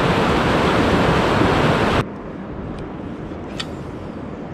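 Water rushing and churning through a concrete-walled channel: a loud, steady rush that cuts off abruptly about two seconds in, leaving a much quieter steady hiss with a few faint ticks.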